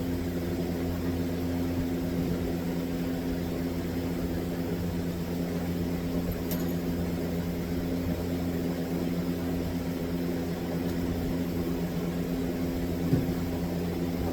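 A steady low hum made of a few even, unchanging tones, with one short knock near the end.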